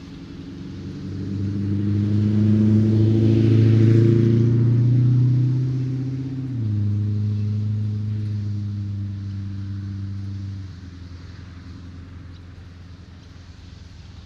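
A motor vehicle drives past on the road. Its low engine note grows louder over the first few seconds and peaks with tyre noise about four seconds in. The note drops slightly in pitch a little after six seconds and cuts back to the steady background noise after about ten seconds.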